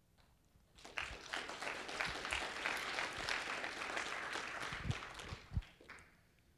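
Audience applauding at the end of a talk, starting about a second in and dying away near the end.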